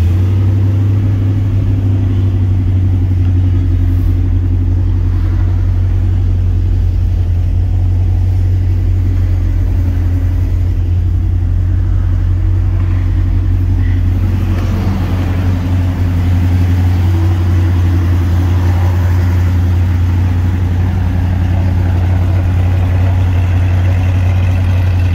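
A 1970 Dodge Dart Swinger's 340 small-block V8 idling steadily on its fast idle, with the engine still cold.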